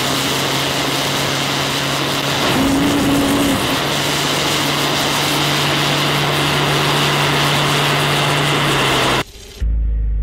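3D-printed ceramic vortex rocket engine firing on propane and oxygen: a loud, steady rushing roar with a constant low hum in it. It cuts off suddenly near the end, and a short low hum follows.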